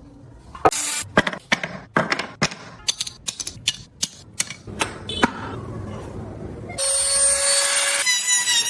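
Woodworking on a small carved piece: a run of irregular sharp wooden knocks and taps, then a small power tool starting up with a steady whine about seven seconds in.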